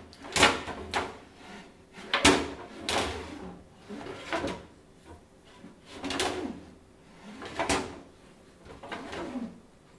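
A small child pulling kitchen drawers or cupboard doors open and banging them shut, about eight sharp clatters and bangs spaced unevenly, some with a brief ring from things rattling inside.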